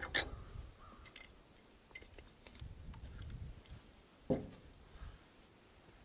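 Small metallic clicks and handling noise as a butane lighter insert is pushed back into its Zippo case, with one louder knock about four seconds in.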